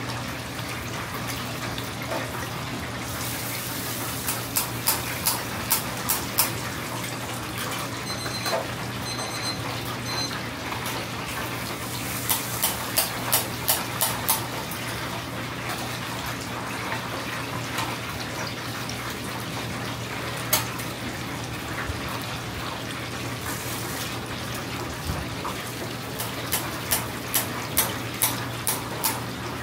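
Chicken karaage deep-frying in a commercial fryer: the hot oil sizzles and crackles steadily over a low steady hum. Three times, steel tongs clack in a quick run of five or six sharp metallic clicks, about three a second, as pieces are turned and lifted out.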